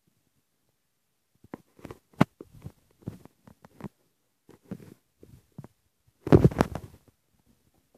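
Handling noise from a camera being moved about and covered: scattered clicks, knocks and rubbing on the microphone, with a louder burst of rubbing a little after six seconds in.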